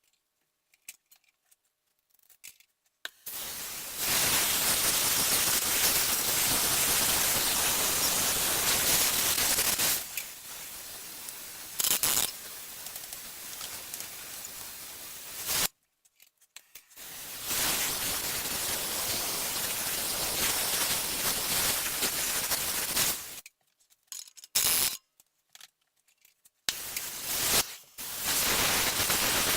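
Gas torch flame hissing steadily as it heats rusted exhaust flange bolts to free them. The hiss stops and starts several times, with a few short bursts between the longer runs.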